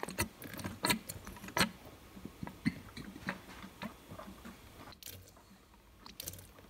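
Small irregular clicks and puffs as air is blown by mouth into the vacuum line of a quad bike's diaphragm fuel pump. The pulses work the pump, which is spitting fuel into a plastic outlet tube. The clicks are loudest in the first second or so and grow fainter and sparser after.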